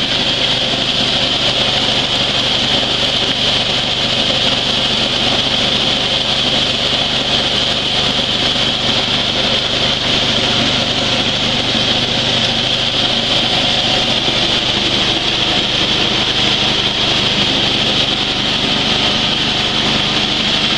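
Coffee huller running under load while dry coffee beans are fed through it, with a steady, even rushing hiss of beans and husks being rubbed apart, over a small stationary engine running steadily.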